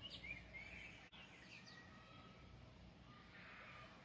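Near silence: faint room tone, with a few soft, short bird chirps in the first second or so.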